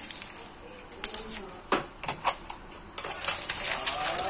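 A pan of shrimp, clams and crab being stirred in a metal pan: clam shells clicking and clattering against each other and the pan in a few scattered sharp clicks. A faint voice comes in near the end.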